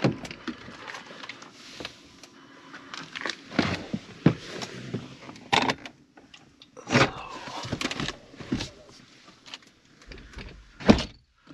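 Rustling, clicks and knocks from someone moving about and handling things inside a pickup truck's cab, with a few sharper knocks, the loudest near the end.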